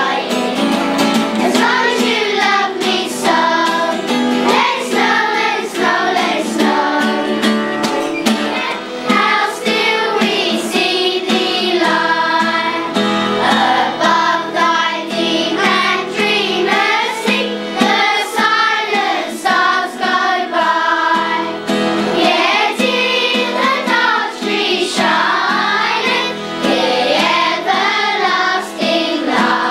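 A children's choir singing a Christmas carol together.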